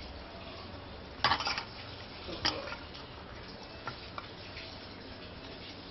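Hands kneading a soft semolina-and-maida dough in a stainless-steel bowl, the bowl knocking and scraping as the dough is pressed. There are two short clattering scrapes about a second in and midway, then a couple of faint ticks.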